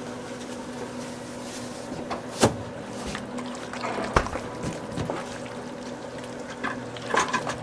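Thick, creamy chicken pie filling being stirred in an aluminium pot, with a few sharp knocks of the utensil against the pot, the loudest about two and a half seconds in, over a steady kitchen hum.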